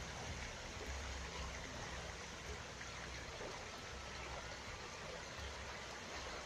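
Sil river flowing steadily past rocks: an even rush of running water.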